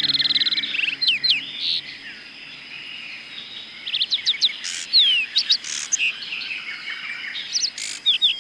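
Wild birds chirping and whistling in short, quick rising and falling notes, in bursts, over a steady thin high tone.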